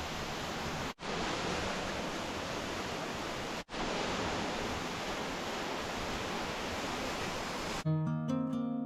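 Steady, even rushing of a large waterfall's falling water, broken twice by abrupt drops to silence about a second in and again at about four seconds. Plucked-string music comes in near the end.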